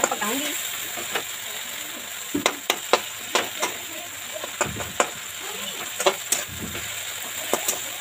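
Onions and tomatoes sizzling as they fry in a pan, stirred with a steel utensil that clinks and scrapes against the pan at uneven intervals.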